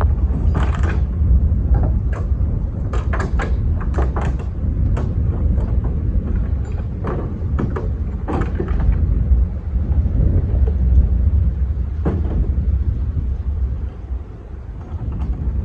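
Wind buffeting the microphone with a steady low rumble, broken by a series of sharp knocks and clunks, most of them in the first nine seconds and one more about twelve seconds in.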